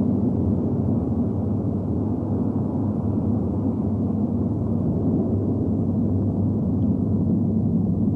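Steady low rumbling drone, an even noise with no distinct knocks or steps.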